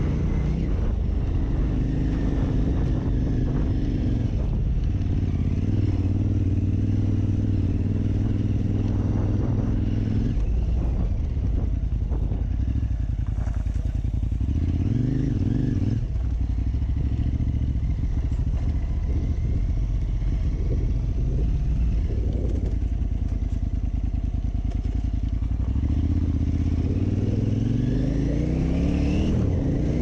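KTM 950 Super Enduro R's V-twin engine running under load as the bike is ridden, holding steady revs with a few shifts in pitch, a quick dip and rise around the middle, and revs climbing steadily near the end.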